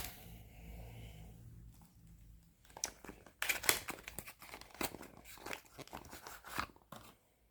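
Packaging crinkling and rustling as a small item is handled and unwrapped: a click at the start, then a run of short irregular crackles through the second half.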